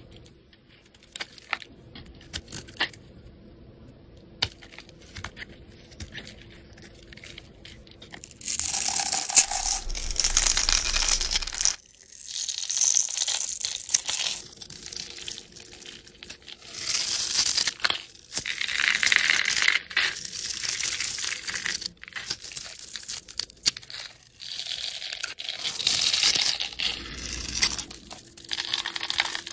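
A knife cutting bars of soap: faint, scattered clicks for the first eight seconds or so, then a run of loud, crisp crunching strokes as the blade shaves through a bar scored into small cubes that crumble off.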